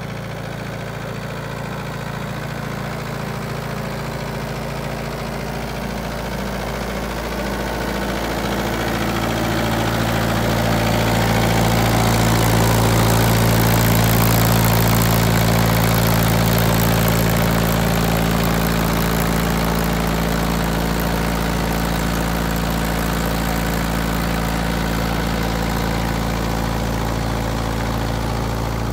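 Tractor engine running steadily close by, a low even hum that grows louder for several seconds about halfway through and then eases a little.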